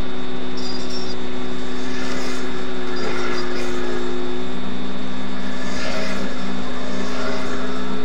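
Loud steady rushing noise with a low hum, and a car approaching along the street, its sound building toward the end.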